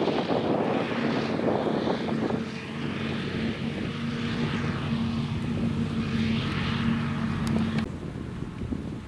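Claas Jaguar 850 forage harvester running steadily under load as it chops maize, a steady machine hum over a rushing noise, with wind on the microphone. The hum cuts off suddenly near the end, leaving mostly wind noise.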